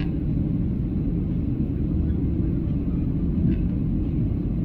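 Steady low rumble of a jet airliner in flight, heard inside the passenger cabin: engine and airflow noise.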